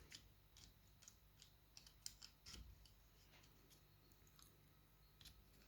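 Faint, irregular small clicks and taps of plastic parts being handled and fitted together: the case of a StarLine A94 car-alarm key fob being reassembled around its circuit board.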